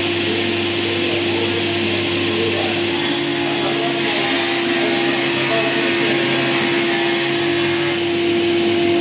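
Sliding-table panel saw running with a steady hum. About three seconds in, the blade cuts through a white-faced chipboard panel, adding a high hiss that lasts about five seconds and stops abruptly.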